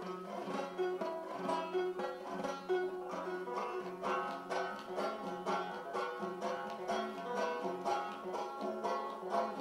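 Solo open-back banjo playing a tune, a quick, steady run of plucked notes.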